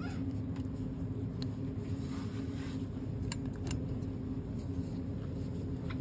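Steady low machinery hum of a supermarket aisle, with a few faint clicks as grave candles are handled on the shelf.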